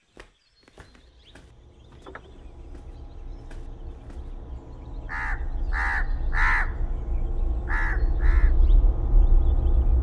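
A crow cawing five times, in a cluster about five to eight and a half seconds in, over a low rumbling drone that grows steadily louder.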